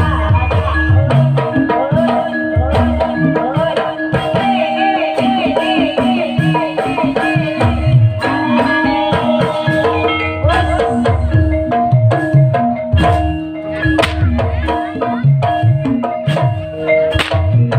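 Javanese gamelan music for an ebeg dance: hand-played kendang drum strokes under steady ringing bronze metallophone tones.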